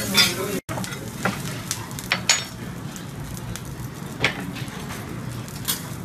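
Fried rice sizzling on a steel teppanyaki griddle while metal spatulas scrape and clack against the plate. Sharp clacks come every second or so. The sound drops out for an instant just after half a second in.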